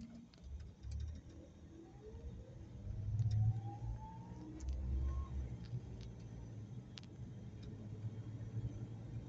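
A car heard from inside its cabin as it pulls away from a stop and accelerates, with low engine and road rumble. A whine from the drivetrain rises steadily in pitch for about four seconds, then drops away as the car settles into cruising.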